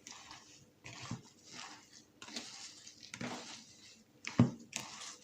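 Hands mixing and squeezing a wet mixture of grated carrot, semolina, sugar and eggs in a bowl: a series of moist squishing strokes about once a second, with a louder thump about four seconds in.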